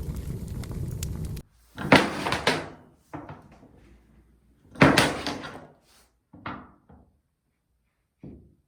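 Crackling fire background sound that cuts off abruptly about a second and a half in. Four separate knocks follow at intervals of one to three seconds, the first two the loudest.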